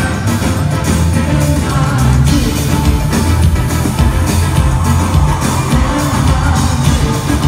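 Live pop band playing loudly, with heavy bass and a steady drum beat, and a woman singing into a microphone over it, heard from within the audience.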